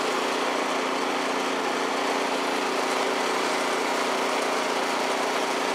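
Troy-Bilt Storm 2620 snowblower's engine running steadily, an even, unchanging hum.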